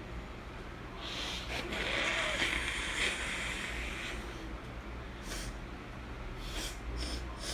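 A person blowing a runny, allergy-congested nose for about three seconds, then several short sniffs near the end.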